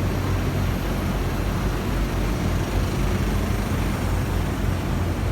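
Bank of air-conditioner outdoor condensing units running under test: a steady whoosh of fan noise over a low compressor hum.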